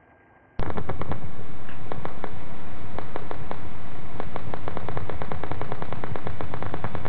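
Needle EMG amplifier audio from an electrode in the frontalis muscle: motor unit action potentials firing, heard as a rapid train of sharp clicks and pops over a steady hiss. It starts suddenly about half a second in.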